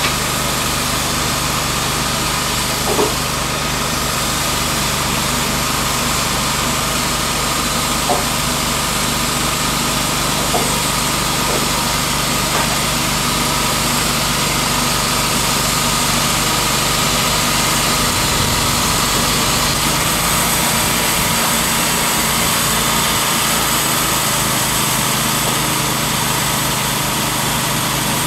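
Timberking B-20 portable band sawmill's engine running steadily, with a few faint clicks; its low note shifts about two-thirds of the way through.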